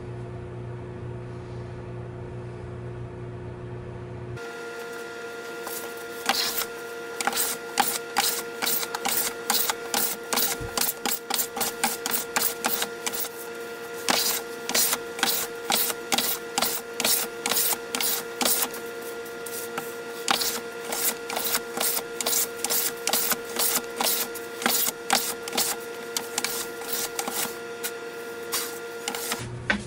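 Wooden hand plane taking quick, short strokes along a board, a rapid irregular run of scraping cuts, several a second, over a steady workshop hum. The strokes begin about six seconds in, after a few seconds of hum alone.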